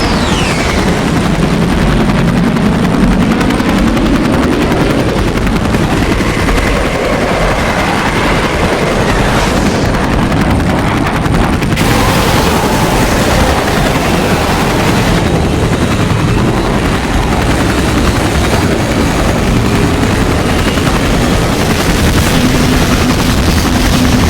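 Loud, continuous battle sound effects: aircraft engines and rapid gunfire in a dense din, with a falling whistle at the very start and a few faint sliding tones.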